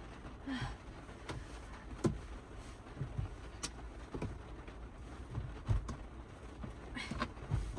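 Raindrops and heavier drips hitting the kei van's roof, heard from inside the cabin: irregular taps and a few deeper plonks over a low steady rumble.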